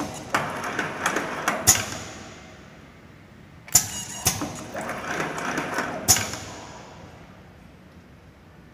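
Pneumatic wrap-around cable labelling machine working through two labelling cycles. Each cycle opens with a sharp clack, runs a second or two of rattling mechanical noise, and closes with another clack. The second cycle starts a little under four seconds in.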